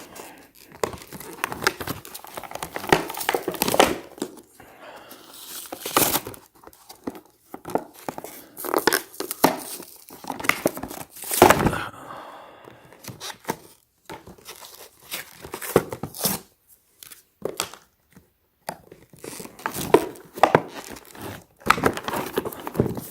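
Tightly sealed retail packaging being crinkled, pulled and torn at by hand in irregular bursts of rustling and sharp crackles.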